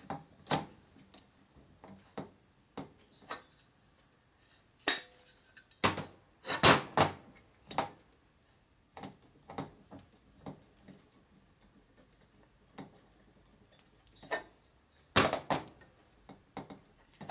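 Metal hand tools and valve-train parts clicking and clinking while valve springs, collars and keepers are fitted into a Harley-Davidson panhead cylinder head. The clicks come singly at uneven intervals, with the loudest clanks about six to seven seconds in and again near fifteen seconds.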